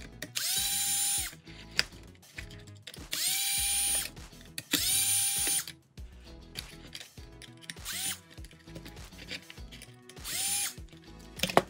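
Cordless drill-driver with a hex bit running in five short bursts, each spinning up quickly to a steady whine, as it backs out small 2.0 mm hex screws from an RC car's receiver box lid. The first bursts last about a second each, and the later ones are shorter. A sharp click comes near the end.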